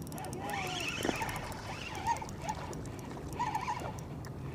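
Steady wind noise on the microphone over open water from a strong gusty wind, with a few faint, short wavering tones.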